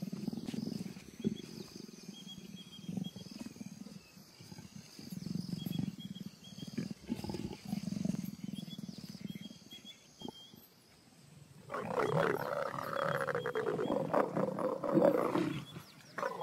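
Leopards growling low and roughly in a string of short growls, then breaking into a louder, harsher snarling growl about three-quarters of the way through, as a leopard pair courts and mates.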